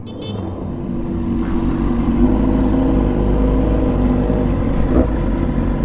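Motorcycle engine running under steady throttle. It grows louder over the first two seconds, then holds steady.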